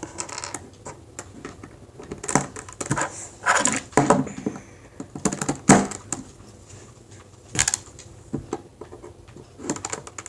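Plastic Rubik's Cube pieces clicking and clacking as they are handled and pressed back into the cube: a series of irregular sharp clicks, with a few louder knocks.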